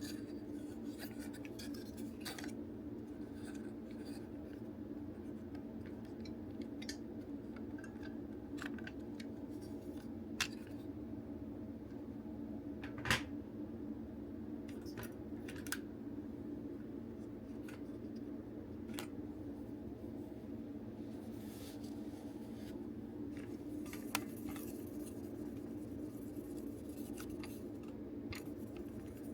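Scattered light clicks and ticks of plastic toy parts and small tools being handled while a DX Buggle Driver Zwei toy belt is taken apart, the sharpest click about thirteen seconds in. A steady low hum runs underneath.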